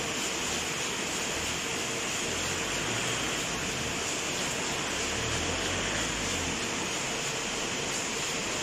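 Steady factory machinery noise: an even, unbroken hiss with a faint steady hum, with no distinct knocks or clatter.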